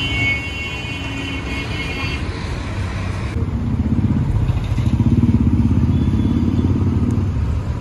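Road-vehicle engines rumbling steadily, with one engine growing louder for a couple of seconds in the second half. A high steady tone sounds for about the first two seconds.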